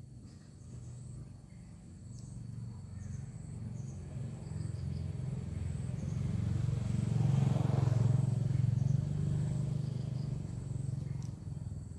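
A motor vehicle passing by: a low engine hum that grows louder to a peak about eight seconds in, then fades. Insects chirp steadily and faintly in the background.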